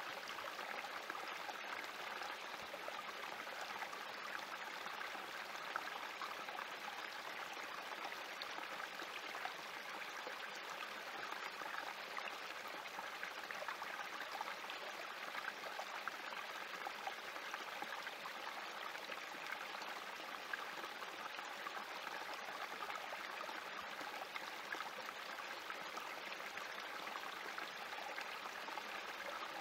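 Small spring-fed creek trickling and splashing over rocks in a shallow cascade, steady throughout.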